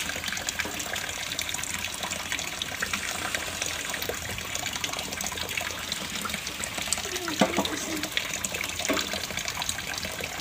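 Tap water running steadily into a stainless steel sink, splashing over a plastic tray as small fish are rinsed and cleaned by hand. A brief pitched sound stands out about seven seconds in.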